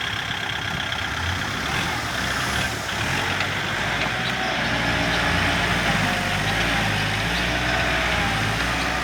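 Engine of a small earthmoving machine running steadily, pulling harder for a few seconds in the middle as it works the soil.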